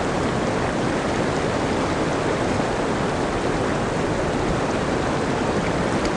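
Mountain creek rushing over rocks: a steady, even roar of fast-flowing water.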